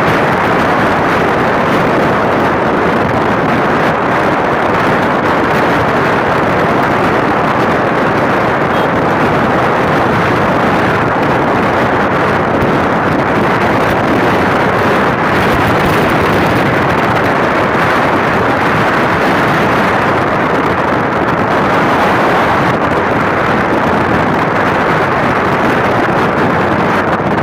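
Steady wind rush and road noise on the microphone of a moving Suzuki Smash 115 motorcycle, even and unbroken throughout.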